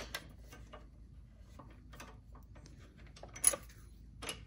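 Hand tool working the crash-bar bracket bolts with a 5 mm hex: a scatter of small metallic clicks and taps at uneven spacing, the sharpest about three and a half seconds in.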